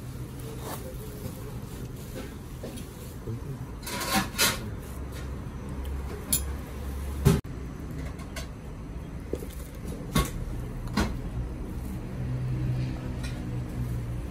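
Tableware clatter: a disposable plastic spoon and plastic tub clicking and knocking against a hammered metal bowl while thick yogurt dessert is scooped, about half a dozen short sharp knocks, the loudest about halfway through. A steady low hum underneath.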